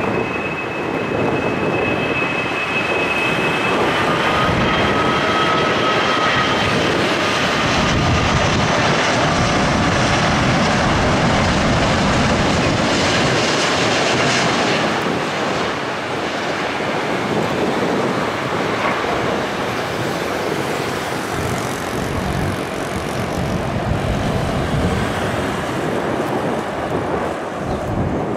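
Twin-engine Airbus A330 jet airliner landing: a high engine whine as it comes in on final approach, then a loud, broad rush of jet noise that swells as it touches down and rolls out, easing off in the second half.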